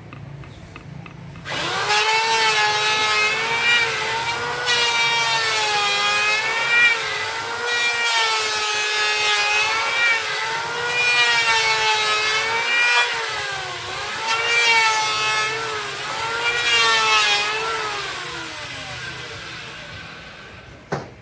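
Handheld electric woodworking power tool run along a wooden door frame: its motor starts about a second and a half in, the whine dipping and rising as it is pushed into the wood, over a steady hiss. Near the end it is switched off and winds down with falling pitch.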